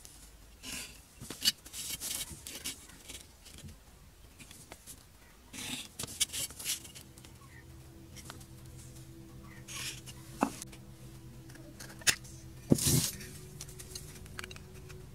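Marker pen scratching lines onto a metal sheet, with sharp clicks and taps of a steel ruler and gloved hands on the sheet, the loudest about a second and a half in and twice near the end. A steady low drone comes in about six and a half seconds in.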